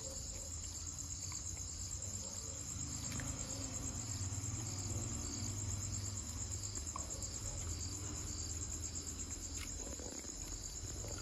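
Crickets chirping in a steady, high, evenly pulsing trill over a low background hum, with a few faint clicks.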